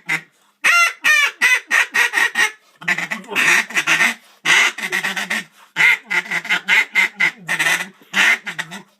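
Mallard duck call blown in a hail call: a long, loud run of separate quacks, a few each second.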